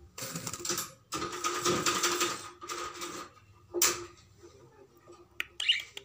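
Budgerigar pecking and rummaging in a plastic bowl of seed: rattling, clicky rustles in several runs over the first three seconds, then a few sharp separate clicks near the end.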